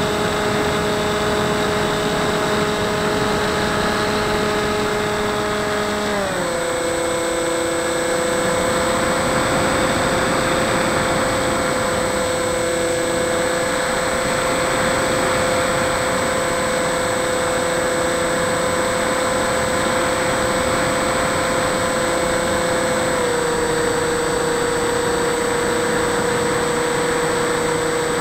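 Turnigy 2210 brushless outrunner motor spinning an Airscrew 6x4 propeller on an RC plane, a steady whine heard from a camera mounted on the plane. The pitch steps down about six seconds in as the motor slows, and drops slightly again later.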